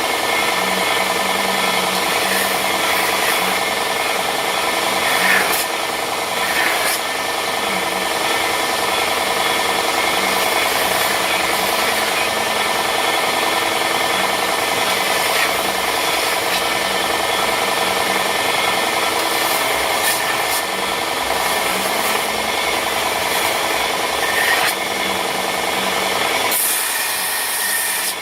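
Electric power sander running steadily against wood, a constant motor hum under a gritty sanding hiss, with a few brief sharper scrapes. Near the end the low hum fades while the hiss grows brighter.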